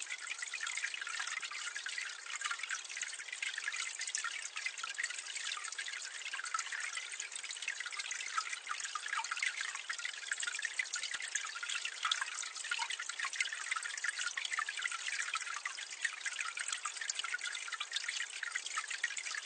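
Water spilling from a drainpipe into a gully, heard from medium distance: a steady splashing and trickling thick with small drips.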